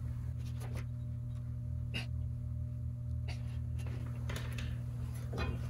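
A steady low hum with a few faint clicks and soft rustles, about one a second, as the greased front hub and brake disc is handled and hands are wiped with a rag.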